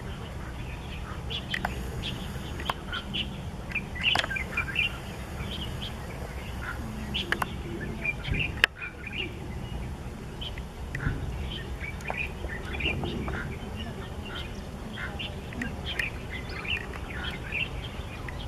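Birds chirping busily, many short calls overlapping, over a steady low rumble. One sharp click about halfway through.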